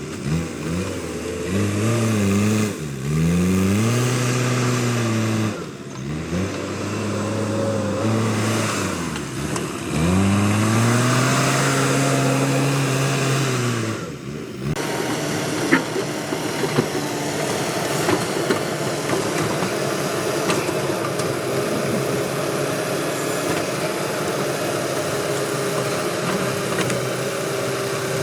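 A backhoe loader's diesel engine revving up and down again and again under load. About halfway through, the sound changes abruptly to a steady rough noise with scattered sharp clicks.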